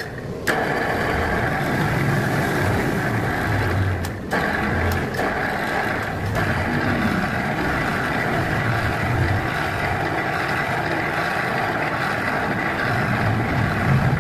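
Electric motor driving a worm-gear speed reducer, switched on at its push-button switch and running steadily, with a brief dip about four seconds in.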